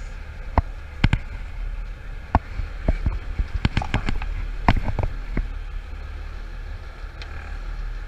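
Sharp knocks and taps of swim fins and gear handled on a fibreglass boat deck, coming thickly in the first five seconds and then stopping, over the low steady rumble of the idling dive boat.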